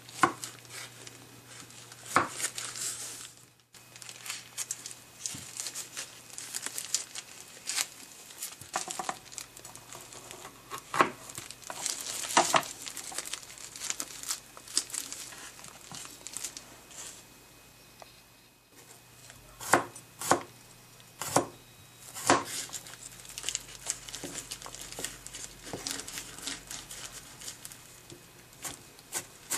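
Vegetable prep by hand: disposable plastic gloves crinkling, a chef's knife cutting asparagus and slicing garlic on a plastic cutting board, and broccoli florets being pulled apart. Scattered sharp knife knocks on the board stand out over the rustling.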